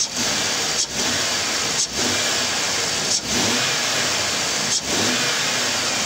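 2002 Ford Taurus's 3.0-litre V6 running under the hood while the throttle is snapped open and let fall back several times, a snap-throttle test, with a strong hissing intake and engine noise and brief dips between the revs.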